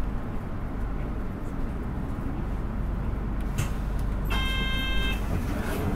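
Nissan Diesel Space Runner RA city bus's diesel engine running under way, heard inside the cabin as a steady low rumble. A short electronic beep sounds about four seconds in and lasts under a second.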